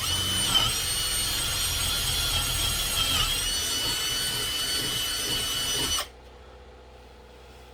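Power drill with a 3/8-inch bit boring into a 2x4. The motor whine runs steadily and dips briefly in pitch under load about half a second in and again about three seconds in, then stops suddenly about six seconds in.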